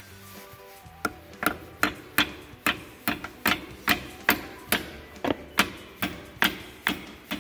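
Ball-peen hammer tapping a steel roll pin into the brake fork on a Massey Ferguson 165's cast-iron rear axle housing. It is a steady run of sharp metal-on-metal strikes, about two and a half a second, starting about a second in.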